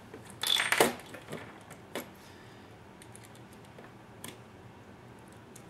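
Small clicks and a short clatter of hard plastic and metal parts being handled as a drive shaft is fitted into a 1/14 scale RC truck chassis. The loudest is a quick run of clicks about half a second in, followed by a few single clicks.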